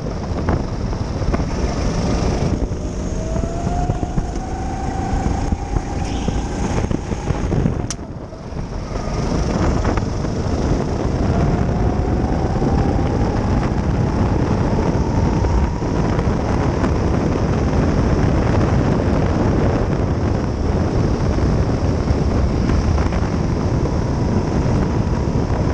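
Go-kart engine heard onboard at racing speed, with wind on the microphone. Its pitch climbs, dips briefly about eight seconds in, climbs again and then holds steady near top speed.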